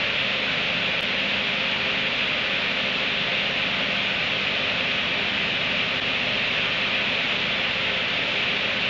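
A steady, even hiss, brightest in the upper range, that runs without a break or change.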